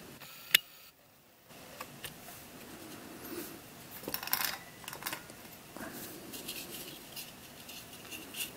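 Black 3D-printed plastic puzzle pieces handled and fitted together. There is a sharp click about half a second in, then light clicks and rubbing of the hard plastic parts against each other.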